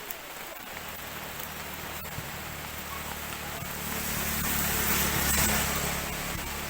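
Drizzling rain falling steadily. A low steady hum sets in under it about a second in, and the hiss swells louder for a couple of seconds near the end.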